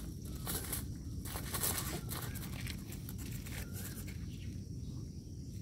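Faint scuffs and light clicks of dogs' paws on gravel as they sniff around a wire-mesh rat trap, over a steady low rumble.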